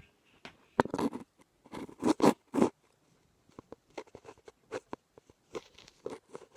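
Handling noise from a Super 8 camera being held and fumbled against another camera: irregular clicks, taps and short scrapes of plastic, loudest about one second in and again about two seconds in.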